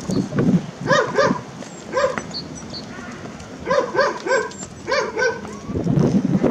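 A young dog barking: about ten short, high yaps in quick pairs and threes. Wind rumbles on the microphone near the end.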